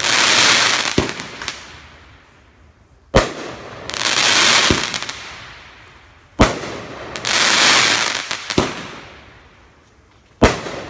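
Aerial fireworks going off: three sharp bangs a few seconds apart, each followed by a long crackling sizzle that fades away, with one such crackle already fading at the start.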